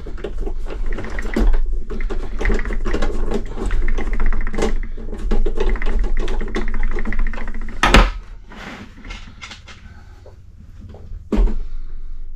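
Screwdriver turning screws back into the plastic housing of a Honeywell HZ510 space heater: a fast run of clicking and scraping, then a sharp knock about eight seconds in and another near the end.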